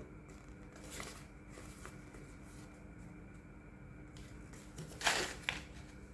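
Quiet handling of a toy box and its packaging, with faint small rustles, then a brief louder crinkle about five seconds in and a click just after.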